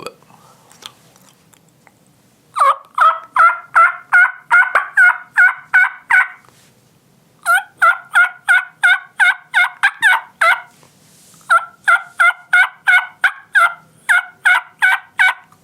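Turkey mouth call imitating a hen: three runs of yelps, each with a cut thrown into the middle, at about four notes a second with short pauses between the runs.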